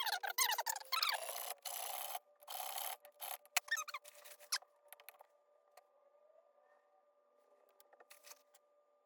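Small hand file working a steel watch pivot in a lathe: quick rubbing and rasping strokes with high squeaks. The strokes stop about five seconds in, leaving a faint steady hum.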